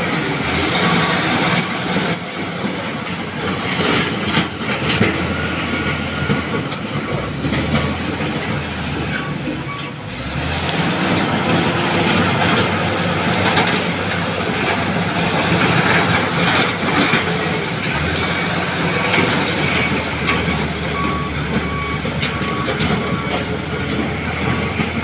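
Bulldozer at work: its diesel engine runs steadily under repeated metallic clanks and a few short squeals.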